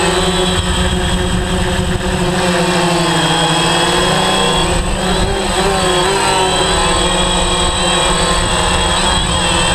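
DJI Phantom 3 quadcopter in flight, its four motors and propellers whining steadily. Several pitches drift up and down together as the rotor speeds change, most clearly about midway and near the end.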